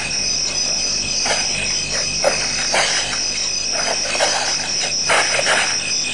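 Night chorus of crickets or other insects at a waterhole, a steady high trill pulsing evenly, with frogs calling in short, irregular bursts over it.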